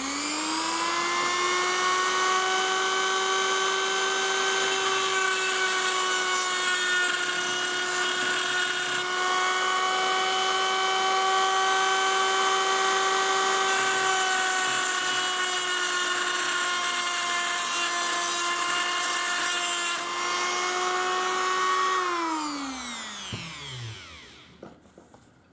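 Dremel rotary tool with a cut-off disc cutting into a metal screw. Its motor whine holds steady, with a harsher high hiss while the disc bites, then falls away and stops a couple of seconds before the end.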